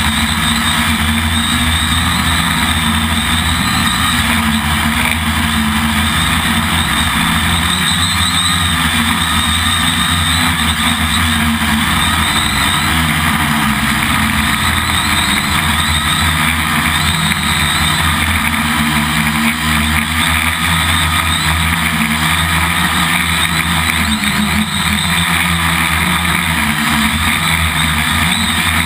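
Quadcopter's electric motors and propellers running in flight, a steady, loud, close buzz from the camera mounted on its frame, its pitch wavering slightly as the throttle changes.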